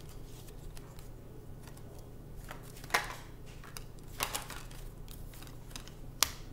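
A deck of tarot cards being shuffled and handled by hand: soft rustling with a few sharp card snaps, the loudest about three and six seconds in.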